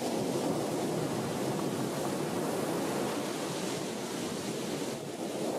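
Sea surf breaking and washing onto a pebble beach: a steady rushing noise.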